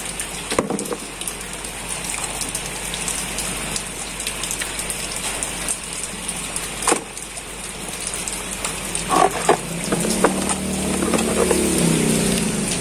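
Steady rain falling on wet ground and a plastic tub, with a few sharp knocks as toys are handled. A low, wavering drone comes in near the end.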